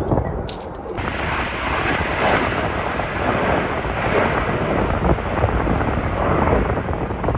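Formation of display jets flying past: a loud, steady jet roar that swells about a second in.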